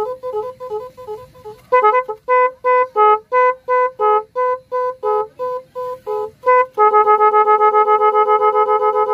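Digital multi-sound motorcycle horn playing its electronic tone patterns. Quick, fainter alternating two-note beeps change about two seconds in to a louder two-note beep, about two to three a second, and near the end to a steady two-tone warble with a fast pulse.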